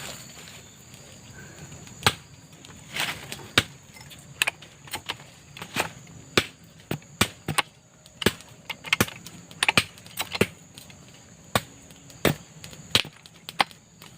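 Irregular sharp chopping knocks, about twenty over twelve seconds, starting about two seconds in, with a steady high insect drone behind.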